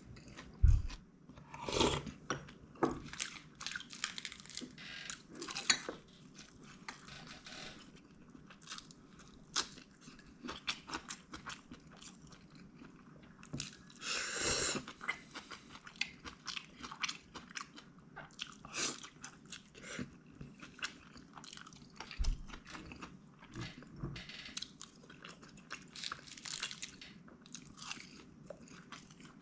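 A person eating: chewing and crunching bites of food, with many short, sharp bite sounds and one longer, louder noise about halfway through.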